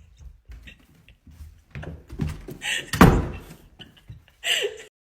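A single loud thud about three seconds in, amid a few fainter knocks.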